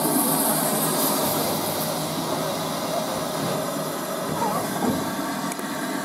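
Steam hissing steadily from around the cylinders of a standing LMS Ivatt Class 2MT 2-6-2T tank engine.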